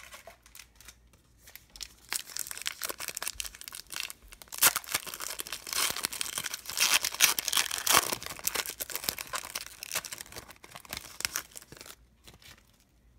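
A 2012-13 Panini Past & Present basketball card pack's foil wrapper being torn open and crumpled: dense crinkling and tearing that starts about two seconds in and stops about a second before the end.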